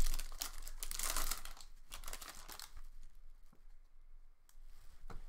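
A trading-card pack wrapper crinkling and tearing as it is ripped open, busy for about the first two and a half seconds, then only a few faint clicks.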